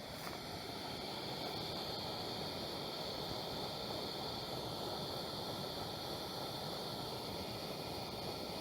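Steady background hiss with a faint, steady high-pitched hum over it.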